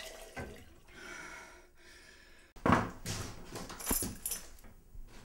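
Handling noises: a loud thump, then crisp rustling and knocking a second or so later as rolled paper plans are picked up off a table.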